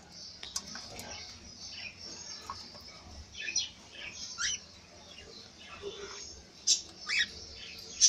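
Pet cockatiels giving a few short, sharp squawking calls, the loudest two close together near the end.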